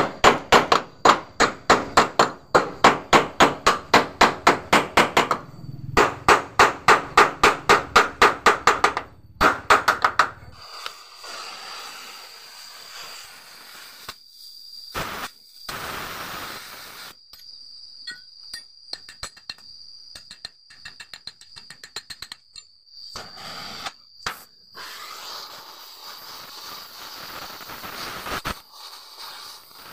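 Steel hammer striking a car door hinge, rapid blows about three to four a second in two runs over the first ten seconds, as the worn hinge pin is knocked out. After that it is quieter, with scattered clicks and stretches of crackling hiss from welding at the hinge, the longest near the end.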